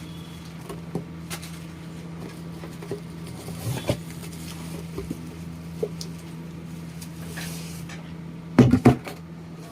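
Scattered small clicks and taps of computer parts being handled during a PC build, with a few louder knocks close together near the end, over a steady low hum.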